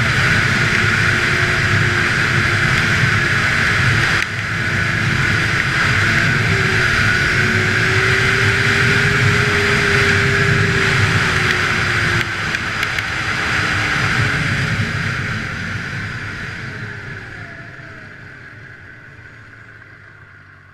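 Snowmobile's two-stroke engine running at speed under wind and track rush, its pitch rising and falling slightly. The whole sound fades out over the last few seconds.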